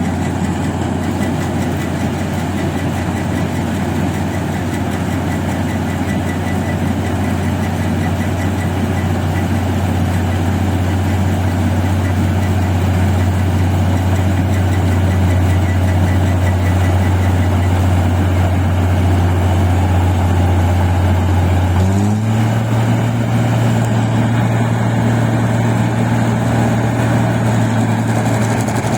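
Rice combine harvester's diesel engine running steadily while harvesting, with a low even drone; about three-quarters of the way through the revs rise quickly and hold at the higher pitch.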